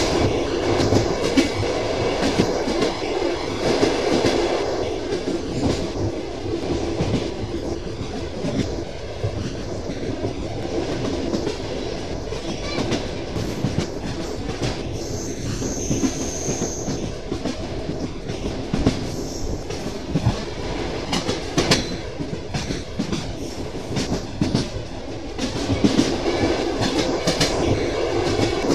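Train wheels clicking and knocking over rail joints over a steady running rumble. A little past halfway a brief high tone sounds for about two seconds.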